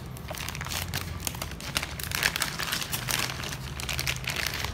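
Packaging rustling and crinkling with small clicks and taps as a stack of spelling cards is taken out of a cardboard toy box.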